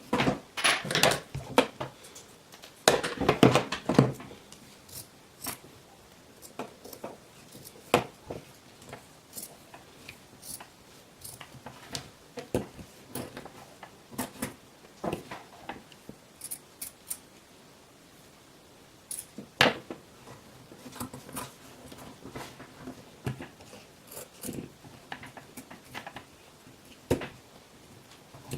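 Irregular clicks, taps and short rustles of the headset and its ear-pad material being handled, thickest in the first few seconds.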